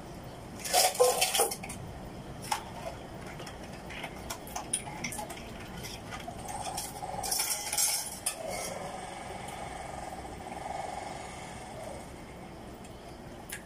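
A person eating by hand at a close microphone: chewing and crunching, with two longer bouts of crackly crunching about a second in and around seven to eight seconds in, and small clicks between them.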